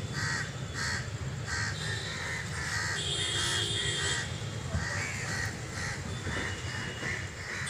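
Crows cawing over and over, about two calls a second, over a low steady rumble.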